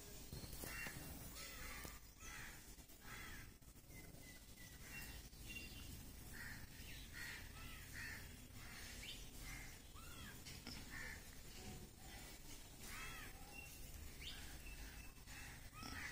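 Faint, repeated short harsh animal calls, one or two a second, with a few thin bird chirps among them.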